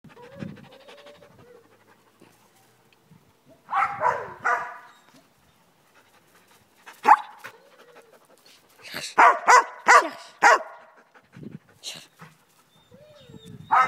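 A dog panting, then barking in short bouts: two barks about four seconds in, a single bark near seven seconds, and a quick run of about five barks around nine to ten seconds.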